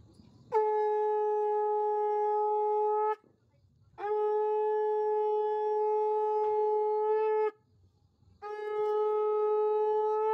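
Conch shell (shankha) blown in three long, steady notes, each starting with a slight upward slide, with short pauses between them.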